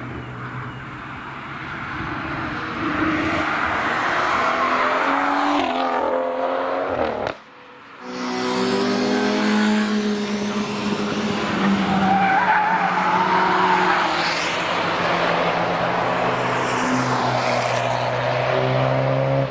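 Performance road cars driven hard past the trackside through a bend, engines revving with pitch rising and falling as each one passes. The sound drops away suddenly about seven seconds in, then a louder car pass follows.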